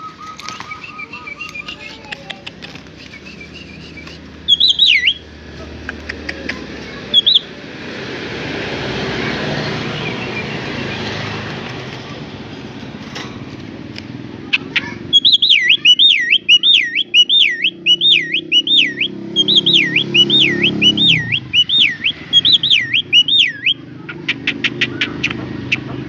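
Javan myna calling: a couple of short whistles, then two long runs of loud, rapid, wavering whistled notes, about two a second, near the end. A swell of rushing background noise comes and goes in the middle.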